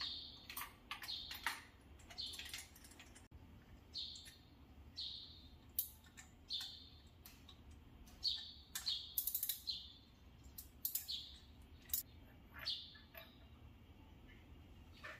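Birds chirping repeatedly, short falling chirps about once a second, with scattered sharp clicks among them.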